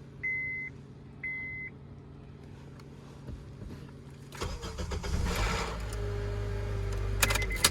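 Two short high electronic beeps, then about four and a half seconds in the 2012 Honda Accord's engine cranks and starts on the newly programmed key, settling into a steady idle. A brief beep and a sharp noise come near the end.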